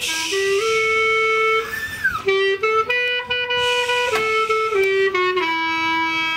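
Klezmer tune led by a clarinet: a melody of held notes changing in steps, with a falling slide about two seconds in.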